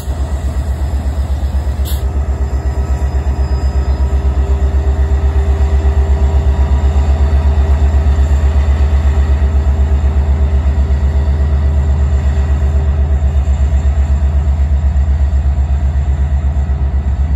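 Canadian Pacific diesel locomotive running under power as it pushes a train, a steady, rapidly pulsing low throb with a steady hum above it.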